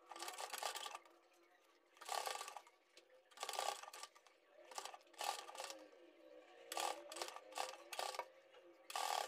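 Black domestic straight-stitch sewing machine stitching in short runs of about a second or less, stopping and starting about six times.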